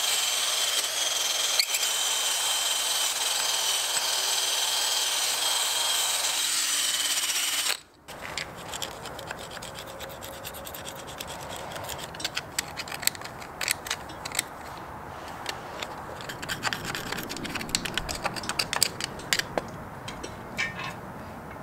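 Makita cordless drill spinning a wire wheel brush against a Honda B-series engine block: a steady whine with grinding. It cuts off suddenly about eight seconds in, and quieter scratchy rubbing and scraping on the block with scattered clicks follows.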